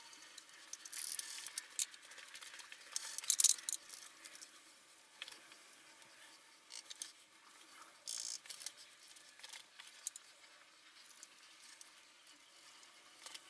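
Handling sounds at a milling machine vise: scattered light clicks, taps and clinks of metal tools and a steel block being set up, with short rustles. The loudest clatter comes about three and a half seconds in.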